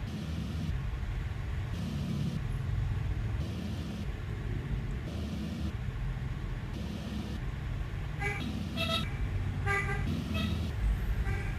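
Steady low traffic or machine rumble, throbbing at an even pace, then a handful of short vehicle horn toots in the last few seconds.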